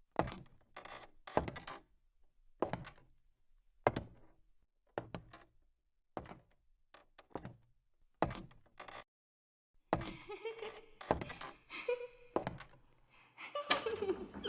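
A series of separate sharp knocks or thuds, roughly one a second, followed near the end by a busier run of knocks mixed with a short pitched sound.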